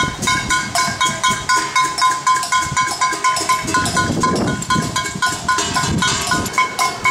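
Metal pots and pans banged rapidly by hand, about four to five ringing clangs a second in an even rhythm, with lower noise swelling briefly about halfway through.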